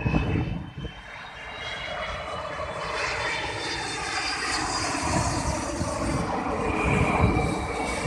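Airbus A330-300 jet airliner on final approach with its landing gear down, its engines' rumble and high whine swelling steadily as it nears, loudest near the end.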